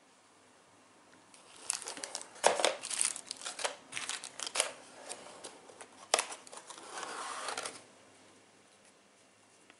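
Small plastic parts bags crinkling and rustling as they are picked up and handled, with a few sharp clicks among them, starting about a second and a half in and stopping about eight seconds in.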